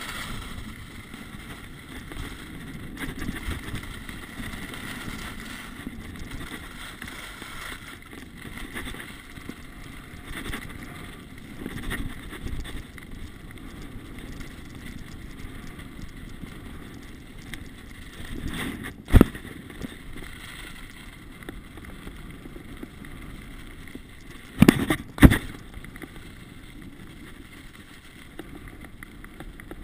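Skis sliding and scraping over packed snow, with wind rushing over the microphone. A sharp knock sounds about two-thirds of the way through, and two louder knocks come close together near the end.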